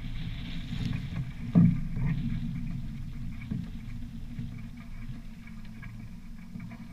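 Low, uneven rumble aboard a small fibreglass sailboat riding at anchor. There is one heavy thump about one and a half seconds in, then a few lighter knocks as a person walks forward across the deck.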